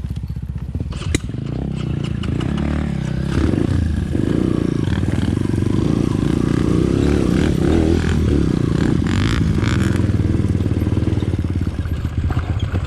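Trail motorcycle engine running under way, rising in level over the first few seconds and then holding steady, with rattles from the bike over rough ground. A single sharp knock comes about a second in.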